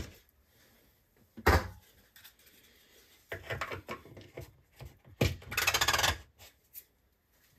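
A single sharp knock about a second and a half in, then the plastic salt-reservoir cap of a Bosch dishwasher being screwed onto its pot in the stainless-steel tub. There are two spells of scraping and rubbing as the threads turn, the louder one ending about six seconds in.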